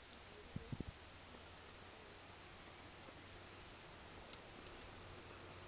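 Faint, steady outdoor insect chirring with light hiss, two soft knocks about a second in, and a faint low hum coming in near the end.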